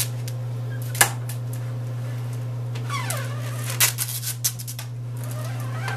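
Clear packaging tape being worked onto an aluminium screen-printing frame. There is a sharp click about a second in, then a short squeal falling in pitch about three seconds in as tape comes off the roll, then light ticking and scraping as a plastic squeegee presses the tape flat. A steady low hum runs underneath.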